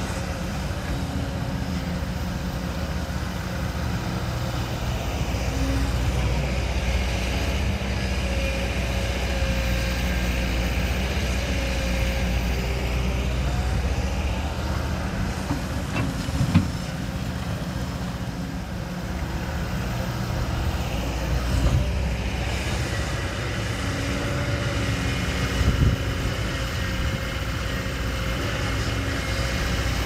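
Heavy diesel construction machinery running steadily, the engine pitch rising and falling a little at times. There are two sharp metallic clanks, one about halfway through and another later.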